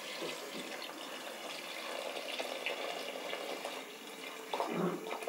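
Tamarind water pouring from a jug into a metal pot of fried vegetables and masala, splashing steadily as the pot fills.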